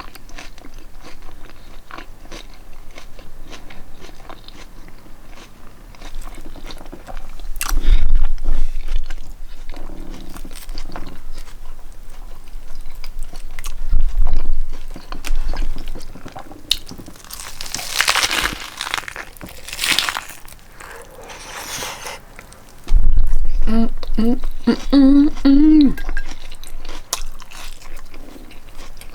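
Close-up eating of a lettuce wrap: bites crunching through crisp lettuce, chewing and wet mouth clicks, with a few dull thumps. A brief voiced hum near the end.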